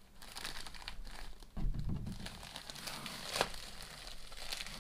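Plastic mailer envelope crinkling and rustling as hands work it open, with a dull thud about a second and a half in and a sharp snap of the plastic about three and a half seconds in.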